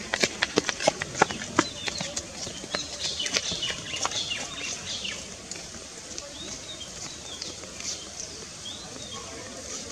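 A quick run of sharp clicks for the first couple of seconds, then short, high chirping bird calls scattered through the rest over a steady background hiss.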